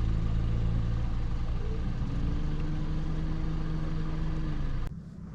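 Car engine running steadily at low speed, its pitch easing down a little about two seconds in, then cutting off abruptly near the end.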